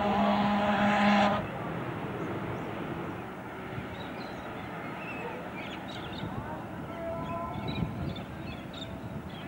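A paddle steamer's steam whistle sounds a steady chord of several notes and cuts off abruptly about a second and a half in. Open-air ambience with a few small bird chirps follows.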